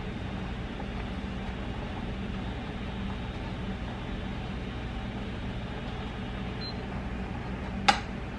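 Steady fan-like hum with an even hiss. Near the end, a single sharp metallic clink as a utensil knocks against a stainless steel saucepan of cooking rice.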